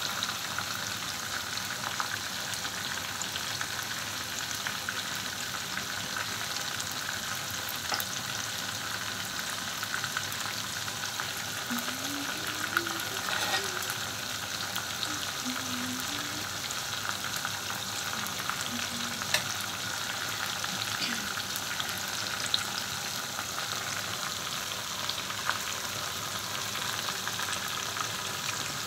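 Masala-coated chicken pieces frying in hot oil in a pan: a steady sizzle with scattered sharp pops and crackles.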